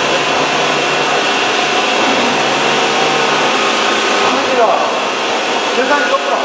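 Hyupshin Drill Master gantry CNC drilling machine cutting a large metal plate under coolant spray: a steady, loud hissing rush with a constant high whine.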